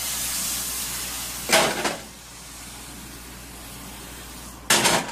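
Crepe batter sizzling as it is poured into a hot cast-iron skillet, with the pan clattering loudly twice, about a second and a half in and again near the end, as it is handled and swirled. A fainter hiss runs between the two clatters.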